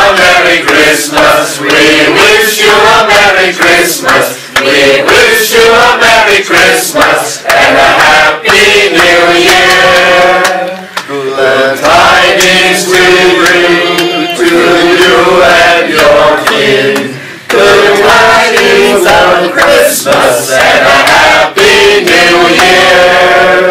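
A group of men and women singing together, in phrases of a few seconds with short breaks between them.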